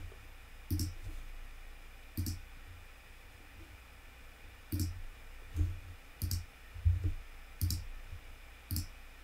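Computer mouse clicking, about eight separate sharp clicks at irregular intervals, each with a light thump and a crisp snap.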